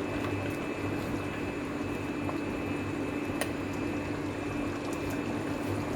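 Mutton cooking down in a clay handi on the stove, a steady simmering hiss over a constant low hum, with a few faint clicks.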